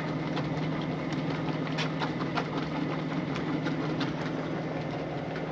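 Frigidaire washing machine agitating a sudsy load: a steady motor hum with scattered clicks throughout.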